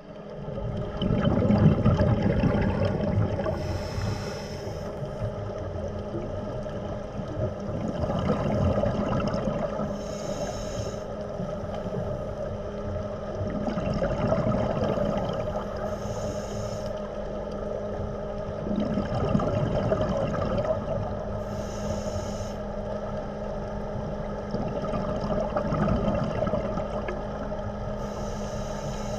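Scuba diver breathing through a regulator underwater: a short hiss on each inhale and a rumbling gurgle of exhaled bubbles, repeating about every six seconds, over a steady low hum.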